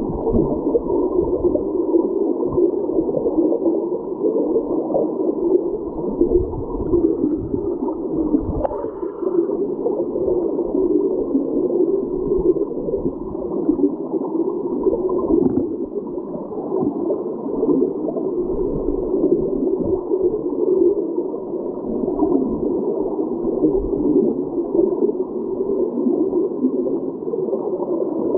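Creek current heard from underwater by a submerged camera: a steady, muffled rushing and gurgling with all the treble gone, broken by occasional low thumps.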